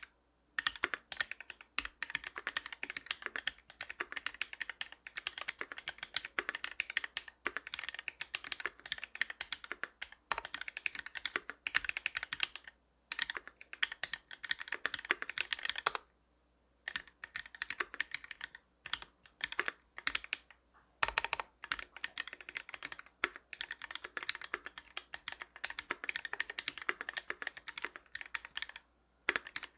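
Custom mechanical keyboard with a brass plate, lubed Milky Gateron White linear switches on 57 g springs and GMK doubleshot ABS keycaps, typed on quickly and continuously, with a few brief pauses.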